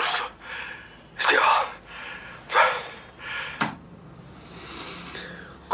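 A man breathing heavily in short, gasping breaths, four of them about a second and a quarter apart.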